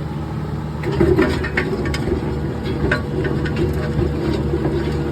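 Tracked skid steer's engine running steadily under load while its trencher attachment digs, with irregular sharp clicks and knocks as the digging chain strikes rocks.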